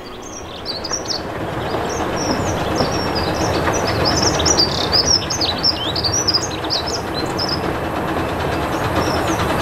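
Miniature steam train approaching, its wheels running on the track with a steady rumble that grows louder. Small birds sing with many quick chirps throughout.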